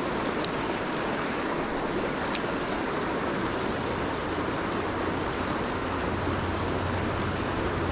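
River water rushing steadily over a trout stream.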